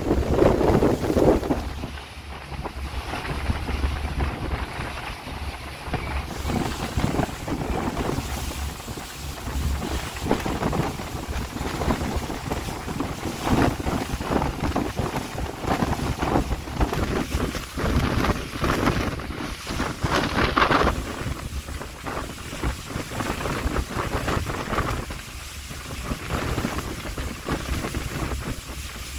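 Strong gusty wind buffeting the microphone over a steady low rumble, with the loudest gusts near the start and again about two-thirds of the way through.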